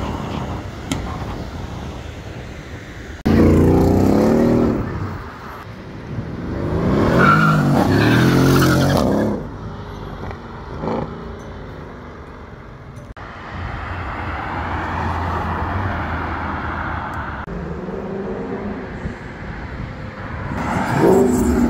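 Sports car engines accelerating hard past on a city street in several short spliced clips. Two loud bursts of revving, with the engine note climbing and falling, come a few seconds in, then steadier engine and traffic noise, and another loud acceleration near the end.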